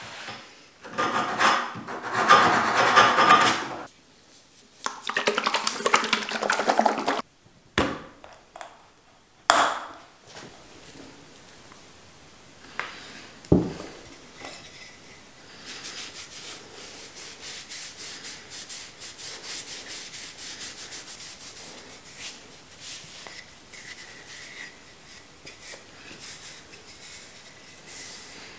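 Hand sanding of a round-wood bottle-opener handle with a strip of sandpaper: two runs of quick scratchy strokes in the first seven seconds. A few sharp knocks follow. From about sixteen seconds in, a cloth rubs faintly over the wood, wiping on hardwax oil.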